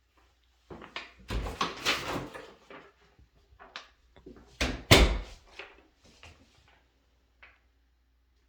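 An interior door being handled: a run of rattling knocks about a second in, then one sharp bang about five seconds in as it is shut.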